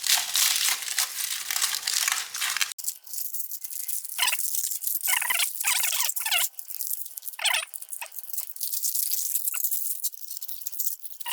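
Foil heat-treat wrapping crinkling and tearing as it is peeled off freshly hardened A2 steel vise jaws. Dense, continuous crinkling for the first few seconds, then, after a sudden break, separate short crackles and scrapes.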